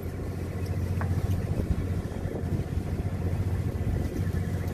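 Steady low hum of a fishing boat's machinery running, with one short click about a second in.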